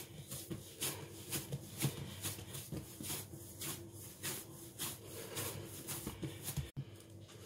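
Hands kneading a firm, slightly dry semolina dough on a wooden countertop: soft rubbing and pressing strokes, about two a second.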